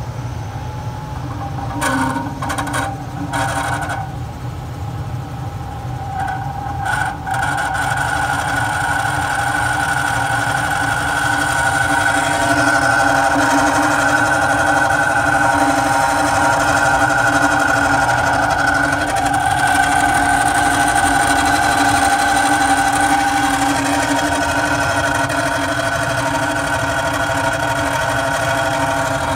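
Carrier Weather Maker furnace blower motor running with a loud grinding noise, a steady whine over a rough rumble, a sign that the blower motor is failing and needs replacing. It grows louder and steadier after about eight seconds.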